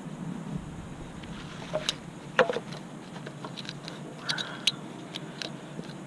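Scattered light plastic clicks and taps of a new ignition coil pack being handled and fitted onto the engine's valve cover, with the sharpest click about two and a half seconds in, over a steady low background hum.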